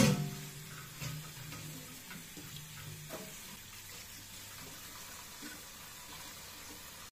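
Kitchen tap running steadily into a stainless-steel sink, the stream splashing over red spinach leaves as they are rinsed by hand.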